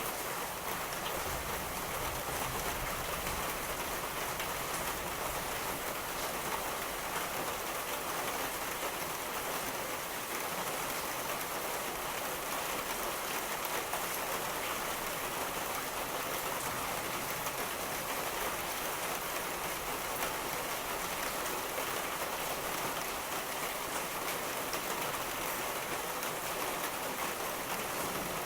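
Steady, heavy rain falling and pattering on surfaces, a continuous even hiss with no thunder clap.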